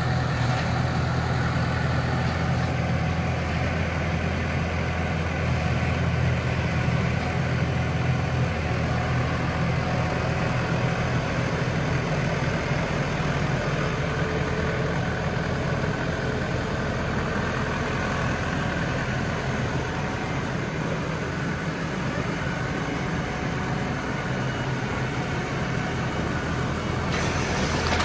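Case IH Farmall 95C tractor's four-cylinder diesel engine running steadily as the front loader works a manure grapple, digging into and lifting a load of animal manure.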